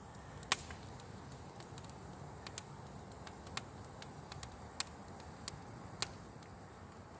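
Small twig-bundle campfire crackling, the burning twigs giving irregular sharp snaps about one or two a second as the bigger twigs catch.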